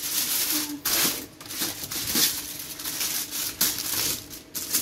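Aluminium foil crinkling and crumpling in irregular bursts as hands fold it and press it tight around a whole fish.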